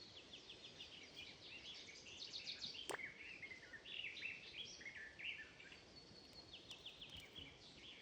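Songbirds singing, several at once, in quick runs of short chirping notes. A single sharp click sounds about three seconds in.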